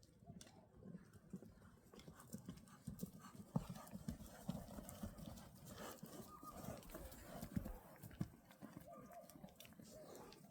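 Hooves of livestock running and trotting over ground: faint, irregular dull hoofbeats that come thicker in the middle stretch.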